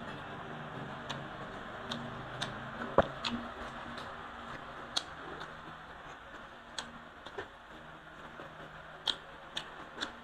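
Eating sounds at a meal table: scattered, irregular sharp clicks and taps, the loudest about three seconds in, over a steady low background hiss.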